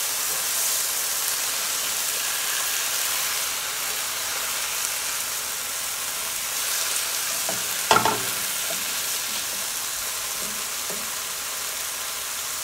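Stir-fry of chicken and vegetables in soy sauce sizzling steadily in a nonstick skillet as it is stirred with a spatula. One sharp clack about eight seconds in.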